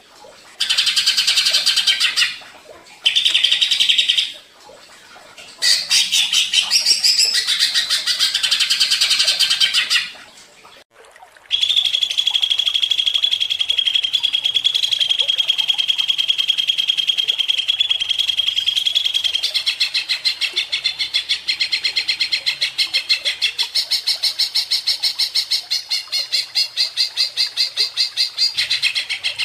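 Green leafbird (cucak ijo) singing loudly in bright, high phrases broken by short pauses. About eleven seconds in it launches into one long unbroken run: a steady trill, then rapid repeated notes that carry on to the end.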